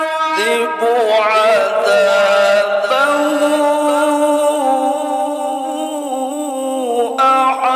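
A male qari's voice in melodic Quran recitation (tilawah), holding long ornamented notes that waver in pitch. A new phrase begins about three seconds in and another near the end.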